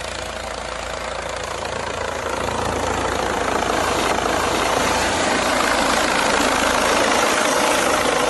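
Police helicopter overhead, its steady rotor and engine noise growing louder over the first few seconds, then holding.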